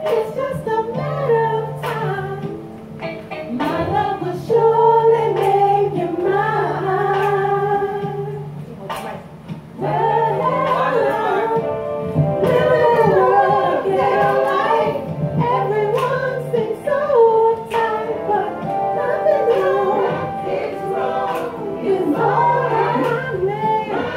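Women singing together into microphones over music with a repeated bass line and a regular beat, karaoke-style.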